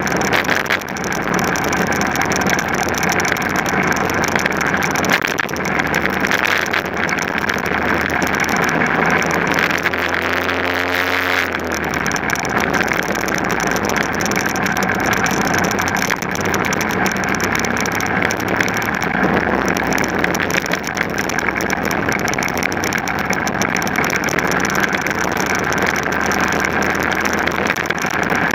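Onboard sound of a racing vehicle at speed: its engine running hard under a constant rushing noise, with the engine note climbing steadily for a couple of seconds about ten seconds in.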